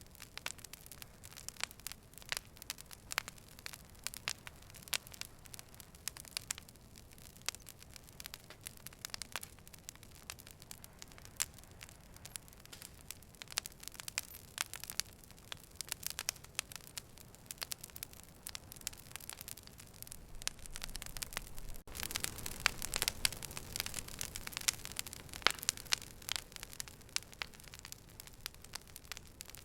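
Fire crackling and popping: a steady run of sharp snaps over a soft hiss, growing louder and denser about two-thirds of the way through.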